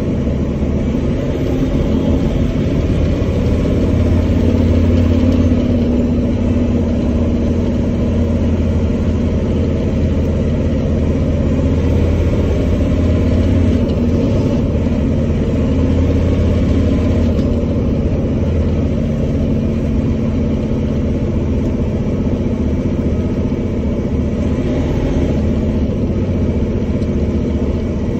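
Detroit Diesel Series 60 straight-six diesel of a Freightliner truck running under way, heard from inside the cab as a steady low drone.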